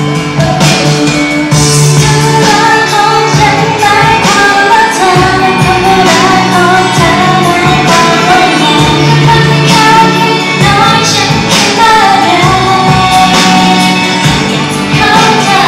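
Thai idol pop song: a woman's lead voice singing into a handheld microphone over a loud, full backing track.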